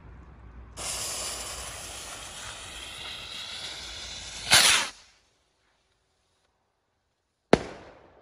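Firework rocket: the fuse hisses steadily for about four seconds, then a loud rushing whoosh as the rocket launches. About three seconds later there is a single sharp bang as it bursts in the air.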